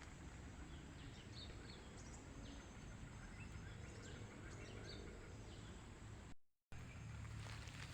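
Faint outdoor ambience with a few short, faint bird chirps scattered through it. The sound cuts out completely for a moment a little past six seconds in.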